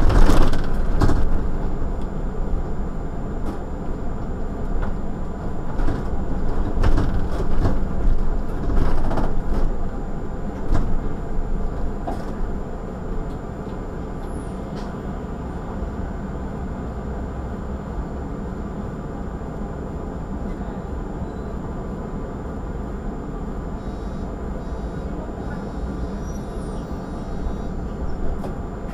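City bus running, heard from the front of the vehicle: engine and road noise with rattles and knocks while it drives for the first dozen seconds, then a steady, quieter engine drone as the bus stands still.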